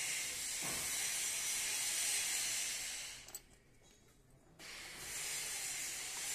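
A steady, high-pitched hiss that cuts out for about a second midway and then resumes.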